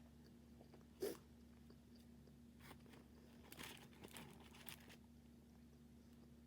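A person biting and chewing crispy fried food close to the microphone: one sharp crunchy bite about a second in, then a few seconds of softer crackly chewing, over faint room tone with a steady hum.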